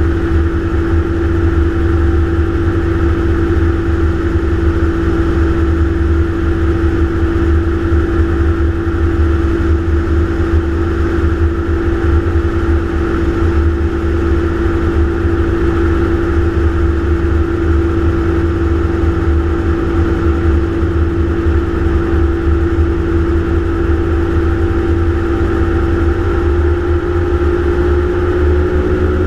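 Gyroplane's engine and propeller droning steadily in flight, heard on board, over a heavy low buffeting rumble; the engine's pitch shifts slightly near the end.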